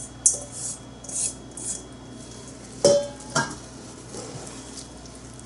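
Kitchen utensils scraping and clinking as pre-measured ingredients are tipped from their bowls into a saucepan of hot butter, sugar and milk, with two sharp clinks about three seconds in, the first one ringing briefly.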